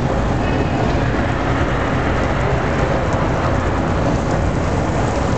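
Indoor artificial rainstorm: a steady shower of water drops pattering into a shallow pool, with a deep rumble underneath.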